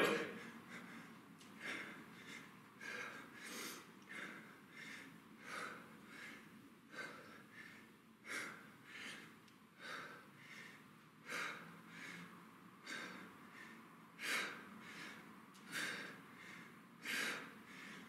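A man breathing hard from the effort of one-arm kettlebell overhead presses: short, sharp breaths repeating about once a second.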